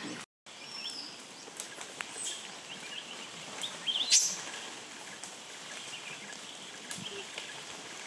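Birds calling over a steady outdoor background hiss: scattered short chirps and whistles, the loudest about four seconds in, a quick call sweeping up high.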